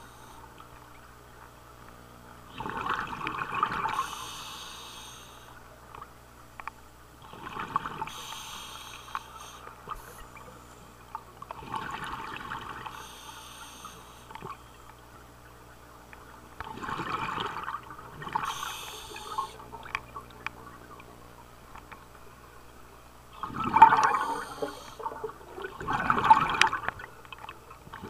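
Scuba diver breathing through a regulator underwater: roughly a breath every four to five seconds, each a hiss of inhaling followed by a gurgling rush of exhaled bubbles.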